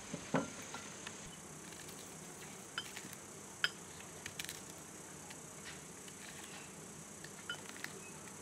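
Papery onion skins crackling and a small paring knife clicking as onions are peeled by hand: a few scattered, sharp crackles over a faint, steady high hiss.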